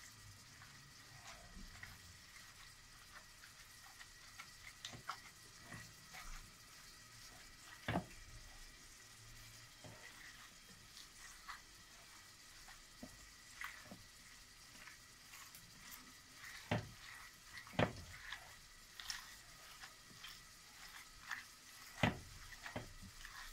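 A hand kneading raw minced beef mixture in a glass bowl: faint, irregular wet squishing and squelching, with a few louder squelches in the second half.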